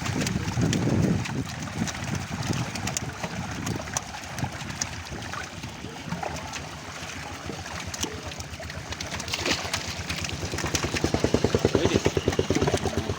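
A small engine running with a fast, even beat, growing louder for a couple of seconds near the end.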